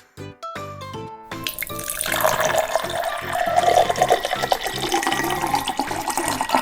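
Water running, like a tap, starting about a second and a half in, over light background music.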